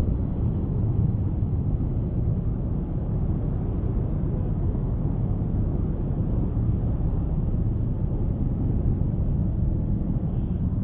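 Steady low rumble of a Honda Scoopy scooter being ridden: engine and road noise mixed with wind on the microphone.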